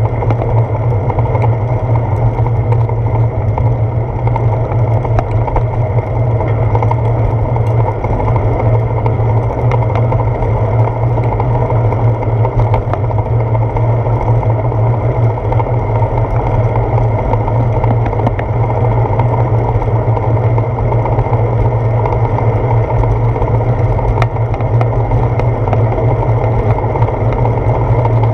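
Steady, loud low rumble of wind buffeting and road vibration picked up by a handlebar-mounted GoPro Hero 4 on a moving bicycle, with scattered faint clicks.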